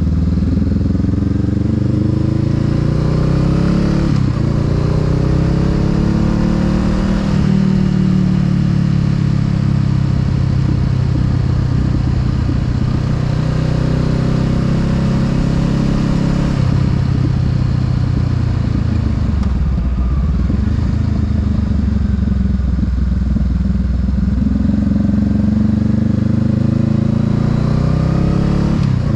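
Honda Rebel 500's parallel-twin engine running under way: the revs climb and drop sharply twice, about four and seven seconds in, as it shifts up, then hold steady, fall away as it eases off and pick up again.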